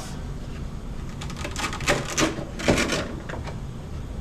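Light plastic clicks and knocks, a quick cluster of them between about one and three and a half seconds in, as the body is popped off a Redcat Gen8 Scout RC crawler.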